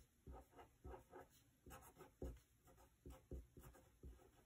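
Faint scratching of a fine-tip black pen on paper as a signature is handwritten: short, irregular strokes, a few a second.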